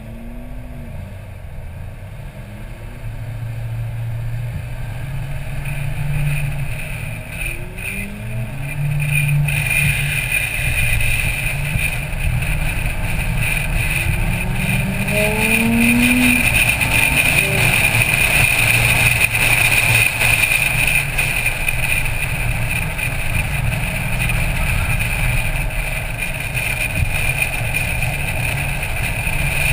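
Car engine running hard, its pitch rising in several short sweeps as it accelerates, under a steady rush of wind and road noise that grows louder after about ten seconds.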